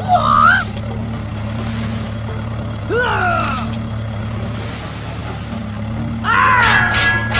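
Cartoon vehicle engine sound effect running steadily, with short high gliding squeaks near the start and about three seconds in. Louder, busier music-like sound with evenly spaced strikes comes in about six seconds in.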